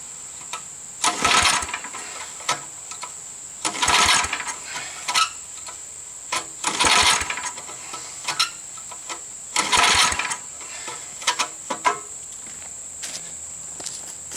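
Old Tecumseh V60 engine on a Snapper riding mower being cranked over in short bursts about every three seconds, with a few weaker tries near the end. The engine does not start.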